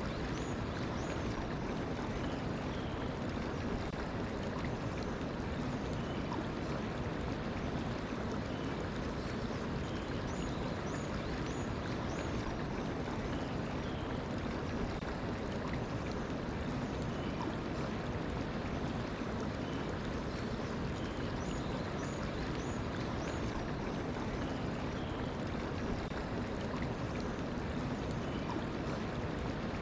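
Mountain stream flowing steadily. Small groups of faint high bird chirps come near the start, about a third of the way in, and about three quarters of the way in.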